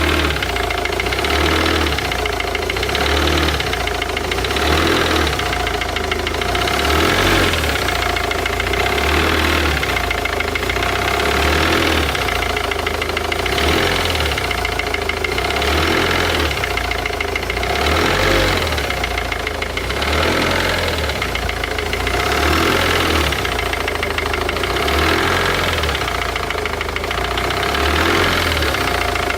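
Volvo V50 D2's 1.6-litre D4164T four-cylinder turbodiesel running with a knock in it, the unidentified knocking noise the owner is asking about. The sound swells and eases about every two seconds.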